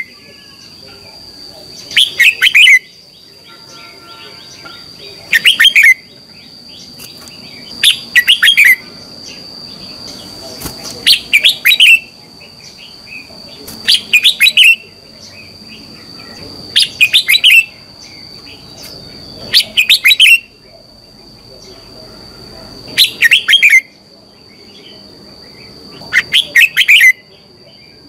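Red-whiskered bulbul singing short, bright whistled phrases, one about every three seconds, each under a second long. A steady high-pitched tone runs behind the song.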